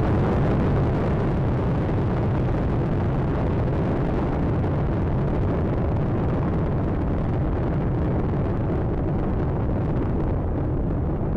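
Space Shuttle Atlantis's three main engines and two solid rocket boosters during ascent: a steady, dense rumble, heaviest in the low end, with its higher hiss gradually thinning toward the end.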